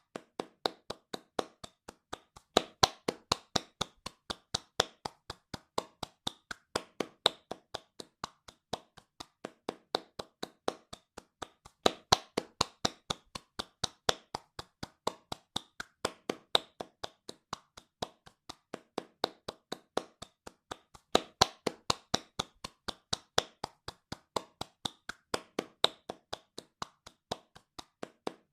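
Hands clapping fast in a steady run of about five claps a second, some claps landing noticeably louder than others.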